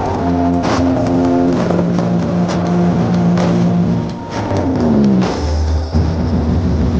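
Loud bass-heavy electronic music played through a giant stacked-speaker carnival sound system (sound horeg). Held synth notes change pitch in steps over sharp percussive hits. About halfway through a note slides down, and a deeper bass swells in after it.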